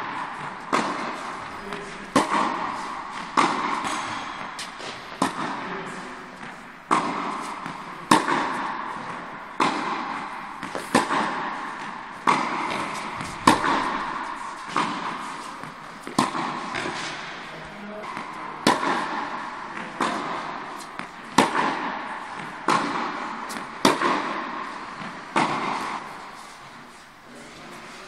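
Tennis balls struck by rackets in a baseline rally, a sharp hit about every second and a quarter, each echoing in a large indoor hall. There is a short lull near the end.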